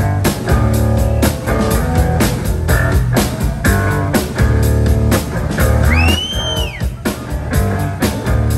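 Live electric rock band playing an instrumental groove: an electric bass carries a funky line over drums and guitar. About six seconds in, a high note glides up and back down.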